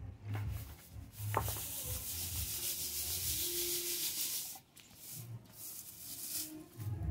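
Dry sesame seeds and chaff rustling with a sandy hiss as they are shaken around in a metal basin for winnowing. The hiss runs for about three seconds from just over a second in, then drops away to softer handling.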